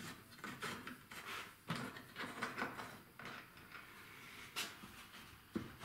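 Wooden workpieces being unclamped from a clamping jig and handled: scattered clicks, light knocks and rubbing, with a sharper knock about four and a half seconds in.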